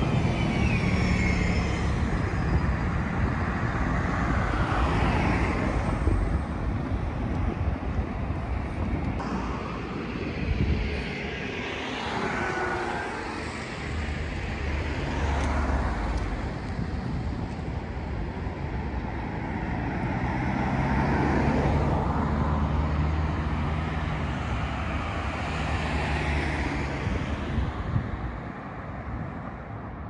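Road traffic on a street: a city bus and cars drive past, their engine hum and tyre noise swelling and fading as each one passes. The bus passes close at the start.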